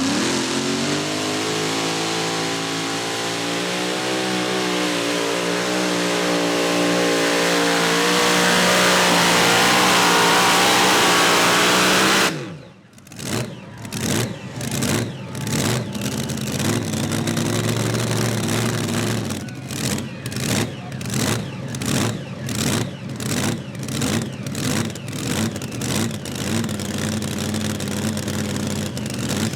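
Pulling tractor's engine at full throttle down the track, pitch climbing and holding for about twelve seconds, then shut off abruptly. After that the engine runs in a choppy way, cutting in and out about once or twice a second.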